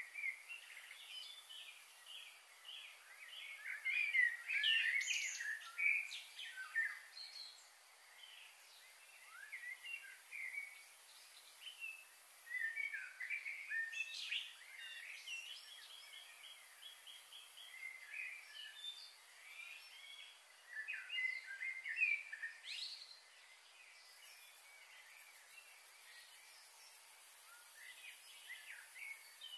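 Small songbirds chirping and twittering in quick, varied notes, coming in three bouts with quieter stretches between, over a steady faint high hiss.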